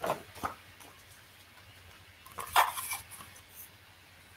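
Soft paper rustles and handling noises from a hardback picture book as its page is turned and the book is held up. There are two short bursts, one at the start and one about two and a half seconds in.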